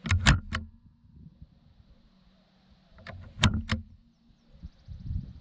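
Air gun firing two quick bursts of three or four sharp shots, the second burst about three seconds after the first.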